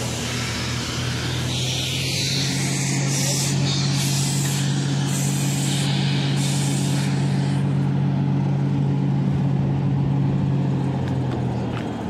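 An engine running steadily at a constant pitch, a low hum with overtones, with patches of high hissing noise over it during roughly the first half.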